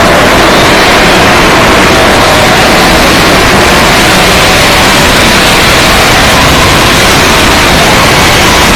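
Steady, heavily distorted noise at full volume, like static, with a faint hum-like tone buried in it.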